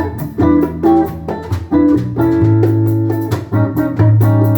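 Guitar-led band music with a bass line: plucked guitar notes over sustained bass notes, with no vocals.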